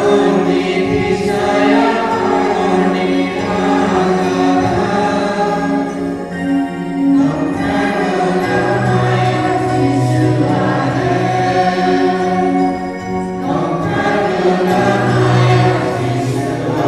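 Church choir singing a hymn, many voices together over long held notes.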